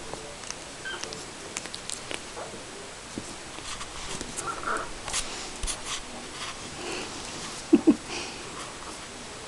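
Puppies playing on a wooden floor: scattered clicks and patter of paws and claws, with small squeaks. Near the end comes a pair of short, loud yaps close together.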